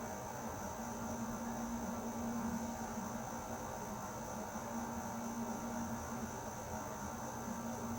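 Air conditioner running steadily: a low hum that swells and fades slightly every second or two, a faint high whine, and an even hiss of moving air.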